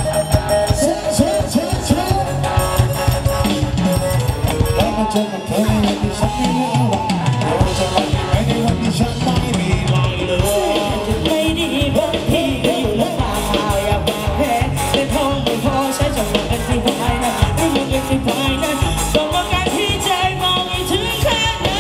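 Live band playing bas lob line-dance music through stage loudspeakers: a singer over drum kit, electric guitar and keyboard, with a steady dance beat.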